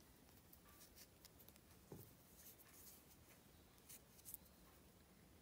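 Near silence, with faint scattered rustles and soft ticks from yarn being handled as the tail end of a crochet magic circle is pulled tight.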